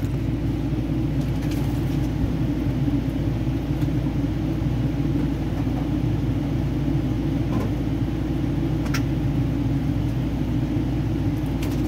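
Steady low mechanical rumble with a hum, with a single sharp click about nine seconds in.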